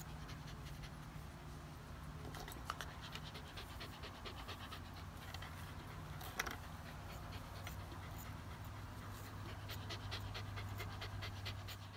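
Australian Terrier panting steadily, over a faint steady low hum.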